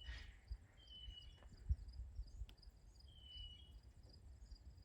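Crickets chirping in a steady, fast pulsing trill, with a bird giving three short, slightly falling whistled notes. A low rumble runs underneath, with a thump just under two seconds in.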